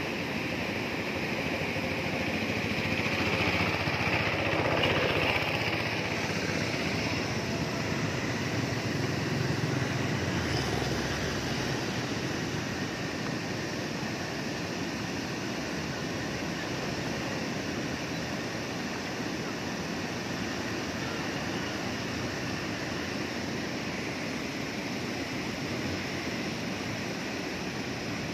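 Floodwater pouring over a concrete weir and churning through the rapids below it: a steady rushing that swells briefly a few seconds in.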